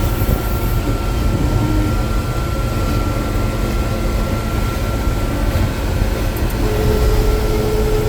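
Gleaner combine harvester running while harvesting corn, heard from inside the cab: a steady low rumble with a thin constant whine over it, and a second steady tone joining near the end.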